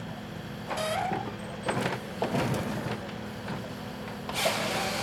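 Excavator-mounted PONSSE H6 harvester head working a log: the carrier's engine runs with a steady hum while the hydraulic head knocks and clunks as it grips and feeds the stem. Two hissing bursts cut in, about a second in and again near the end.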